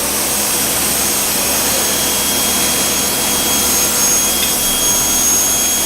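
Induction bar-end forging furnace running: a steady loud hiss with a thin, steady high-pitched whine over it.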